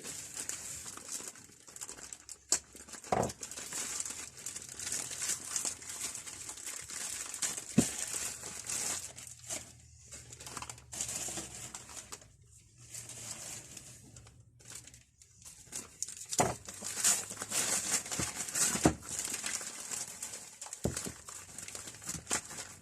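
Packaging being unwrapped by hand: crinkling and tearing of wrapping, with a few sharp knocks as the tool inside is handled.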